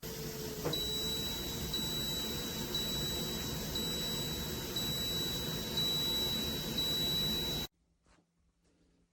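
A high electronic beep repeating about once a second, each beep long with only a short break between, over a steady rushing noise; the sound cuts off suddenly near the end.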